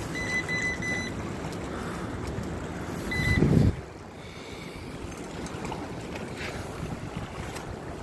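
Wind buffeting the phone's microphone over steady riverside noise, with a loud low rumble from a gust a little after three seconds in. A few short high beeps sound in the first second and once more just before the gust.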